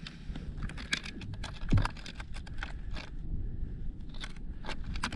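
Close handling noise: a quick, irregular run of light clicks and taps with some rustling of fabric, and one duller knock about a second and a half in.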